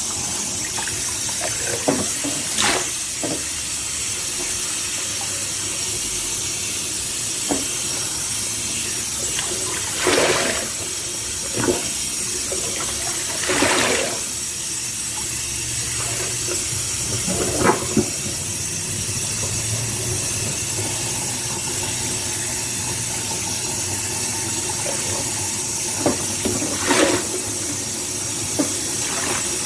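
Tap water running steadily while a soapy sponge is rinsed under it, with a few short, louder squelches as the sponge is squeezed.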